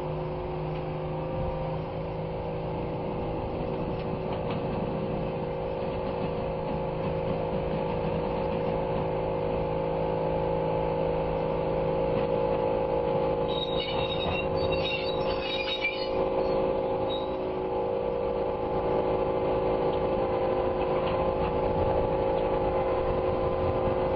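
Rail-mounted locomotive crane's engine running steadily as the crane rolls slowly along the track, growing gradually louder as it approaches, with a few brief high squeaks about halfway through.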